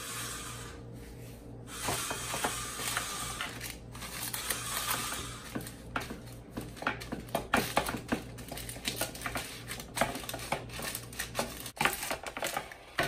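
Irregular clicking and tapping of a parchment-lined metal baking sheet, with the paper crinkling, as hands press and stretch pizza dough out on it. The clicks start about two seconds in and run on unevenly, some sharp and loud.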